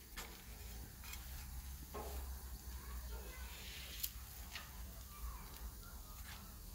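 Flour tortillas cooking on a hot flat griddle: a faint low hum with a few soft ticks, and one sharper click about four seconds in.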